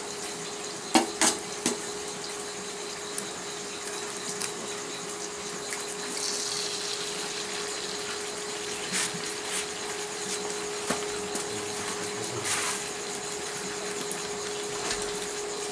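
A few sharp clinks and knocks on a small cooking pot on a portable induction cooker as food is handled into it, most of them about a second in and a few more later, over a steady hiss and a steady hum.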